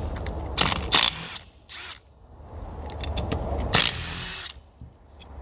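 Ratchet working 10 mm bolts loose on a Honda B-series cylinder head, in short bursts about a second in and again near four seconds.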